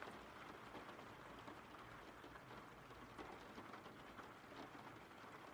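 Faint, steady rain ambience playing as a background bed.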